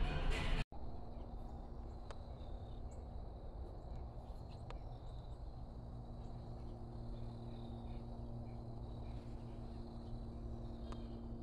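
Background music cuts off abruptly under a second in, leaving quiet outdoor ambience: a faint steady insect drone, a low rumble, and a low steady hum that grows stronger from about six seconds in.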